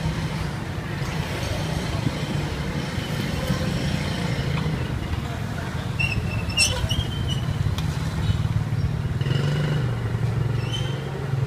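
Motor vehicle engines running in street traffic, the low engine hum dropping in pitch near the end. A brief high squeal and a sharp click come a little past halfway.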